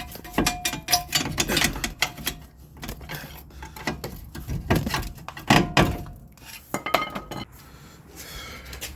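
Steel hand tools clanking and clinking against metal: a quick series of sharp knocks, some ringing briefly, that thins out near the end.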